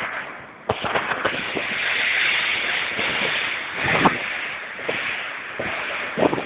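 Blizzard wind blowing hard across the microphone: a steady rushing noise that surges in about a second in, with buffeting thumps from gusts, the strongest about four seconds in.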